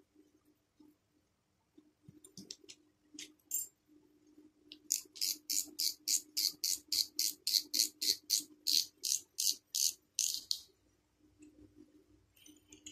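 Small ultralight spinning fishing reel being handled, with a few scattered sharp clicks, then a steady run of crisp, evenly spaced clicks at about four a second for some five seconds as the freshly greased reel is worked.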